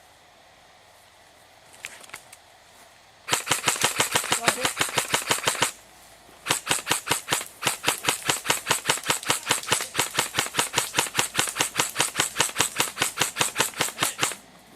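Airsoft gun firing close by in two long strings of rapid, evenly spaced shots, about five or six a second. The first string lasts a couple of seconds; after a short pause comes a second, longer string of about eight seconds.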